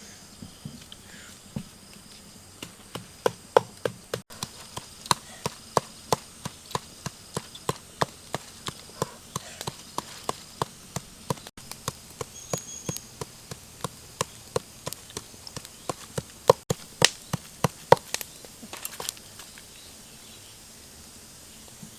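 Rhythmic chopping: a blade striking down onto a wooden surface at about two to three strokes a second. It starts about three seconds in and stops a couple of seconds before the end.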